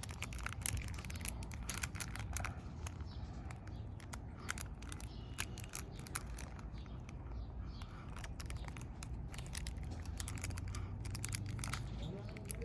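Hands working a slime pizza in a box, spreading the cheese topping over it, with many small crackling clicks scattered throughout.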